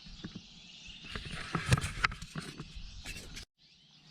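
Scattered knocks and clicks over a rustling hiss, cutting out suddenly about three and a half seconds in.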